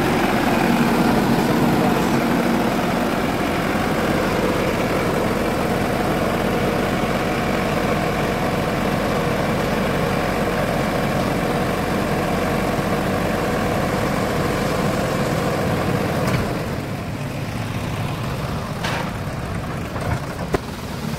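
Sonalika DI-750 III tractor's diesel engine running steadily while the hydraulics tip a loaded trolley. The engine sound drops abruptly about three-quarters of the way through, followed by a few sharp clicks near the end.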